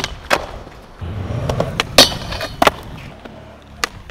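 Skateboard on concrete: wheels rolling, sharp clacks of the board popping and landing, the loudest about two seconds in, and trucks scraping along a metal rail.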